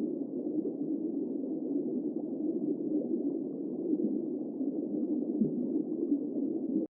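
An animal's low, continuous rumble, steady throughout, cutting off abruptly just before the end.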